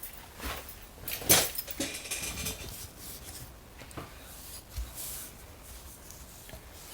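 Light handling noises from a partly disassembled chainsaw on a workbench: scattered small clicks and soft knocks, with one louder knock about a second in.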